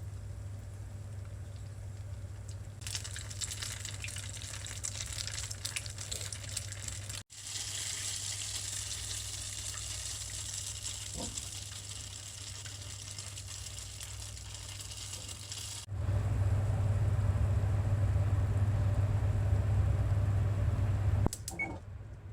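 Kitchen water running from a tap, a steady hiss, over a constant low hum; the hum grows much louder for the last few seconds.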